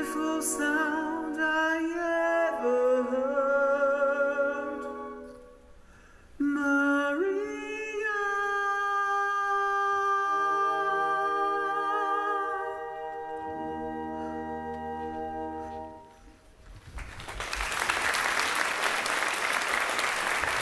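Wind band with singers holding long closing chords, some with vibrato, that fade out around a third of the way in and again near the end. Audience applause then breaks out for the last few seconds.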